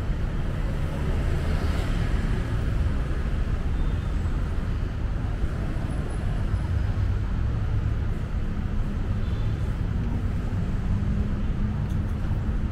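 Steady low rumble of city street ambience dominated by traffic noise, with no sudden events standing out.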